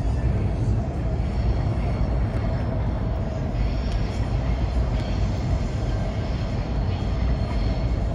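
Steady low rumble of outdoor city background noise, even throughout with no distinct events.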